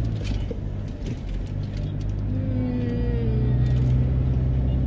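Steady low rumble of a car's engine and tyres heard from inside the cabin while driving at a steady speed.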